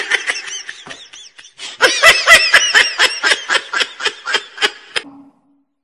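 High-pitched laughter in rapid, even pulses. One run fades out about a second in, and a second, louder run starts near two seconds and stops about five seconds in.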